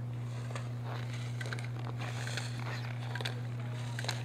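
A steady low hum, with a dozen or so short clacks and scrapes scattered over it as a slalom skier passes through the gates.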